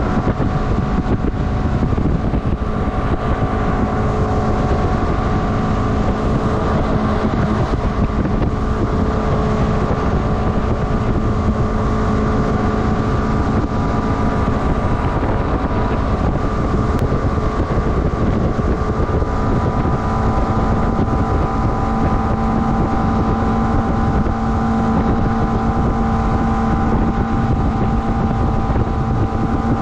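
A small motorboat's engine running steadily under way, a constant drone with wind buffeting the microphone.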